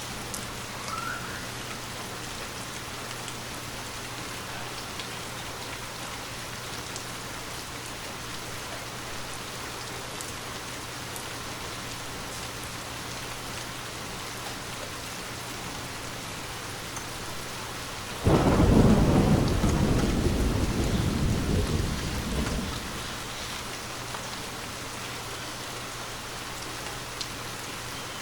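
Steady rain falling. About two-thirds of the way through, a single thunder clap starts suddenly and rumbles off over about four seconds.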